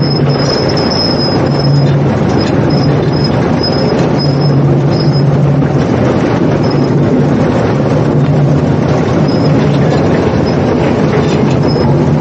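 Road roller's engine running steadily, a loud, even low drone with the rumble of the machine at work.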